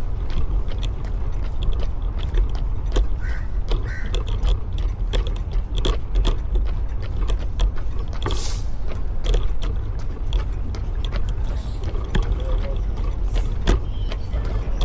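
Running footsteps on pavement, a quick series of shoe strikes and clicks, over a steady low rumble of wind and movement on the microphone. A brief hiss about halfway through.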